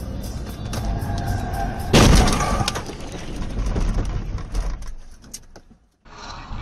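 Car collision heard through a dashcam microphone: a sudden loud crash about two seconds in, with crunching noise that tails off over the next couple of seconds. A faint high tone comes just before the impact, and the sound cuts off suddenly near the end.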